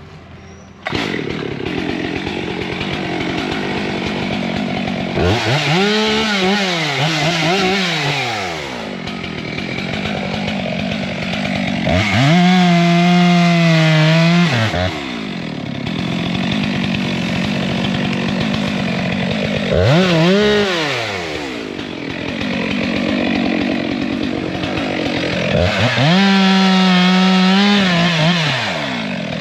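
Gas chainsaw running, revved up to full throttle and eased back to idle several times, the longest revs held for two to three seconds, while cutting down a small hickory tree. The saw comes in about a second in.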